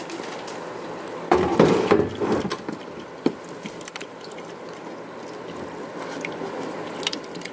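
Light knocks and rattles on a boat deck, a short cluster about a second and a half in and a single sharp tap about three seconds in, over faint steady background noise.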